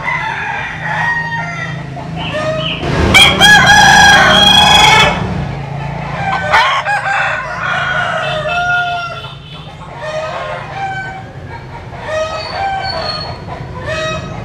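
A flock of crossbred Vietnamese-American chickens clucking and calling, with a rooster crowing loudly about three seconds in.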